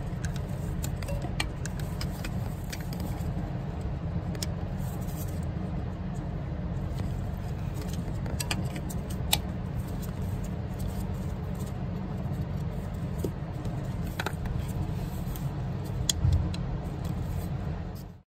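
Scattered light clicks and taps of hoses, clamps and a plastic connector being handled in an engine bay, over a steady low rumble.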